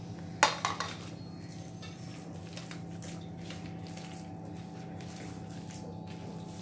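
A spoon scrapes and clicks against a plate about half a second in, scraping ground masala off it. Then a hand squishes and kneads the wet crushed-prawn and onion mixture on a steel plate, softly, over a steady low hum.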